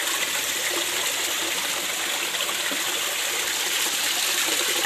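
Shallow stream water running over rocks: a steady rushing.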